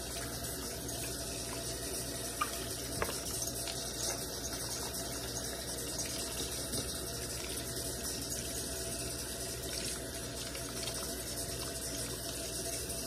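Kitchen faucet running steadily as parboiled beef is rinsed by hand under the stream, with a couple of small clicks between two and three seconds in.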